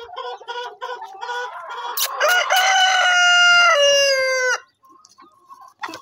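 A flock of domestic chickens clucking, and about two seconds in a rooster crows once, a loud call lasting about two and a half seconds that cuts off sharply; quieter clucking follows.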